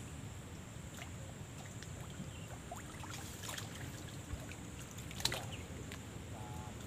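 Water sloshing and trickling around a person wading chest-deep, with small drips and one brief louder sound about five seconds in.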